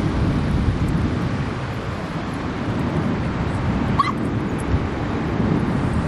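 Wind buffeting the microphone, a steady low rumble. Two short high calls cut through it, about four and six seconds in.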